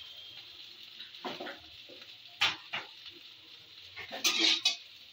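Peeled boiled eggs, slit so they won't burst, frying in hot oil in a kadai (wok): a low sizzle broken by short, sharp sputtering bursts as more eggs go into the oil and a spatula moves them. The loudest burst comes near the end.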